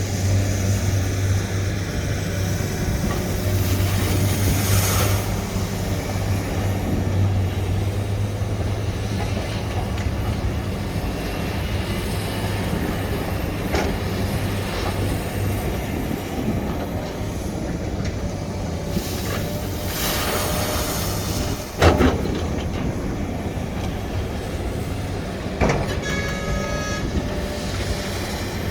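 SANY excavator's diesel engine running with a steady low rumble, with metallic knocks from the working equipment, the loudest about three quarters of the way through. A brief high-pitched tone comes near the end.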